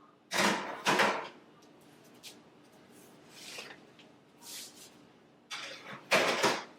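A kitchen oven being loaded: short scraping and clunking of the oven door and rack, two bursts about half a second and a second in, then more clunks near the end.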